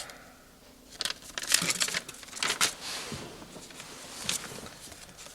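Paper crinkling and rustling as an old paper document is handled, in a run of short crackles starting about a second in.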